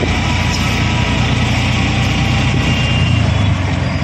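Auto-rickshaw's small engine running steadily in city traffic, heard from inside the open cab along with road noise.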